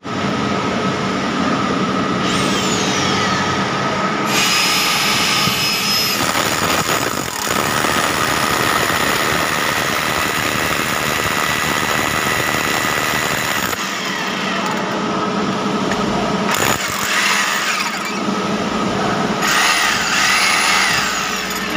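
Electric hammer drill with a long masonry bit boring into a concrete wall, running steadily under load and easing off briefly a couple of times.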